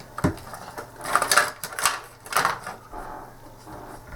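Small plastic joystick parts being handled and scrubbed clean with isopropyl alcohol: a knock, then several short scratchy rubbing strokes.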